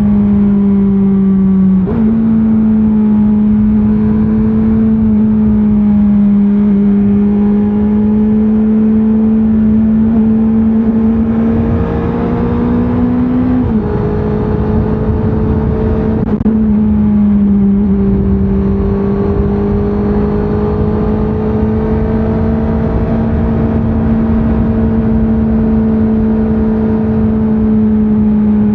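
2024 Honda CBR650R's inline-four engine running hard through its stock exhaust under way, the note holding fairly steady with a few sudden steps up and down in pitch, about 2, 14 and 16 seconds in, over steady wind and road rush.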